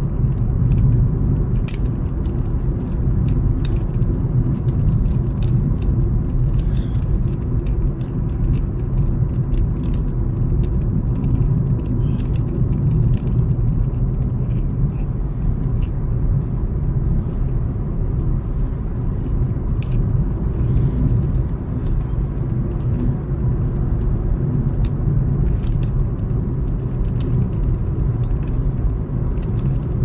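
Steady engine and tyre rumble of a car driving on an open road, heard inside the cabin, with light rattling ticks throughout.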